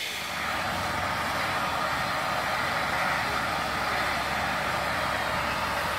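Steam escaping from Battle of Britain class steam locomotive 34081 '92 Squadron' with a loud, steady hiss.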